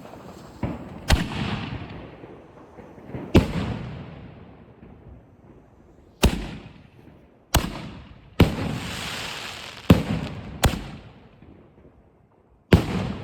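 Master 8 canister shell fireworks going off in a chain: about nine sharp bangs at uneven gaps of roughly one to three seconds, each followed by a rolling echo that dies away.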